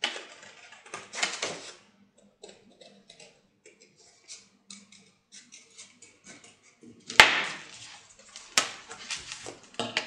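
Scissors snipping through a folded sheet of heavy drawing paper in a run of short cuts, with two sharper knocks in the last few seconds.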